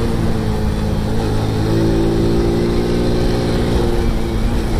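Motorcycle engine running at road speed, a steady drone under heavy low rumble, with a higher engine note joining in for about two seconds in the middle.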